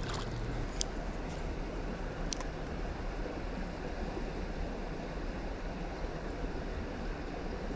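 Steady rushing outdoor background noise with a few light clicks.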